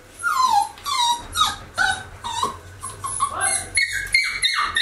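A puppy whimpering over and over in short, falling cries, two or three a second, turning higher-pitched near the end.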